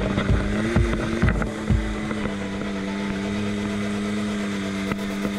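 2018 Can-Am Maverick X3 X DS's turbocharged three-cylinder engine running at a steady speed through its newly fitted RJWC cat-delete exhaust, heard from the cab while driving. A few knocks in the first two seconds, then an even engine note.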